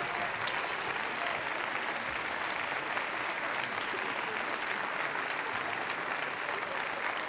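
Audience applauding steadily, an even clatter of many hands clapping.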